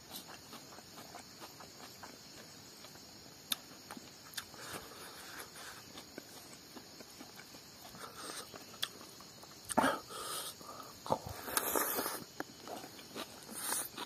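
Close-up eating sounds: a person chewing and smacking a mouthful of rice and smoked pork, with small wet clicks and a few louder bursts in the second half. A faint steady insect hiss underneath.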